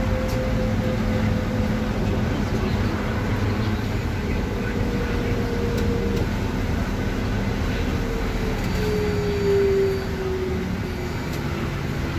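Interior of a moving trolleybus: steady running rumble with an electric motor whine that slowly drops in pitch, loudest about nine to ten seconds in, as the trolleybus slows.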